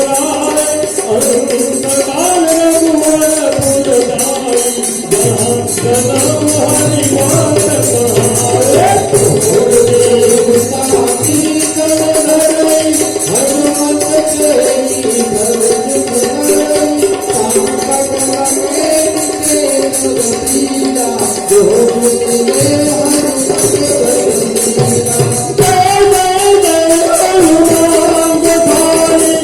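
Devotional bhajan music: a wandering melody over rapid, steady jingling percussion.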